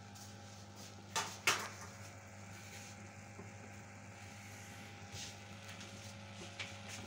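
Two sharp knocks of kitchen utensils about a third of a second apart, a little over a second in, with a couple of fainter knocks later, over a steady low electrical hum.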